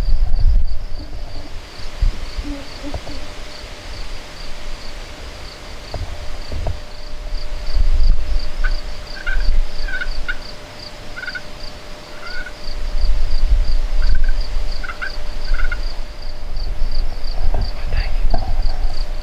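Wild turkey gobbler gobbling and calling, over a steady, evenly pulsing insect chirp and a low rumble.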